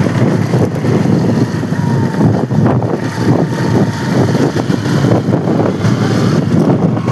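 Small Honda motorcycle being ridden fast, its engine running under steady wind buffeting on the microphone.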